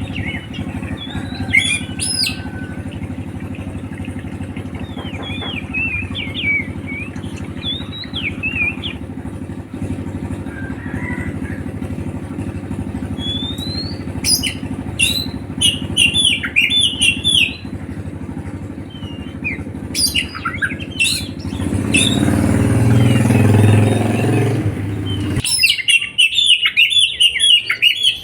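A songbird chirping and twittering in short, quick bursts, repeated throughout. Underneath runs a steady low mechanical hum that swells near the end and then cuts off suddenly.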